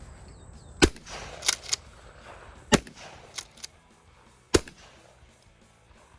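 Three 12-gauge shotgun blasts from a Mossberg 500 pump-action, about two seconds apart, with the pump racked between shots as a quick pair of clacks, back and forward, chambering the next shell.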